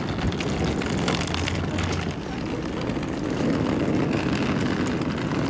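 Rolling suitcase wheels rumbling steadily over pavement.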